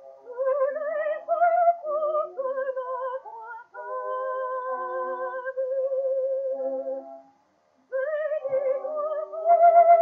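Contralto voice singing a slow melody with wide vibrato and long held notes, over orchestral accompaniment, from a 1908 acoustic-era 78 rpm gramophone record. The voice breaks off briefly about seven seconds in.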